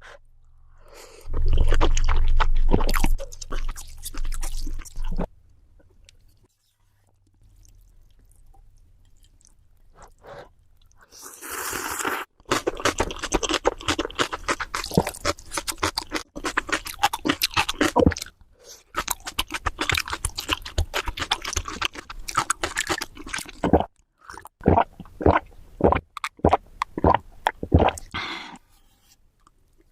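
Close-miked eating sounds: food being chewed and crunched in quick, clicky runs of bites. A quiet pause of a few seconds falls early on, and the chewing stops shortly before the end.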